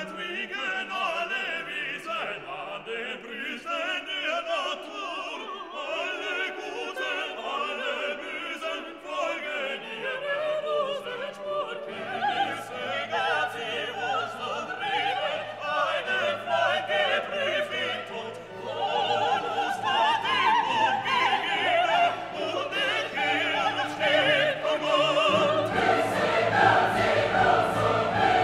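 Background classical music with singing voices, growing fuller and louder as deep bass notes come in partway through.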